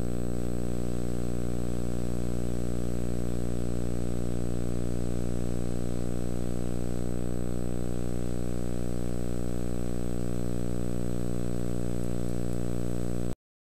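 Steady electrical mains hum, a buzz with a long stack of overtones and a faint high whine above it, unchanging in level and cutting off abruptly near the end.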